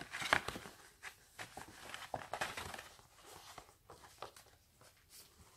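Stiff paper card being handled and folded open: scattered rustles and light taps, the sharpest near the start.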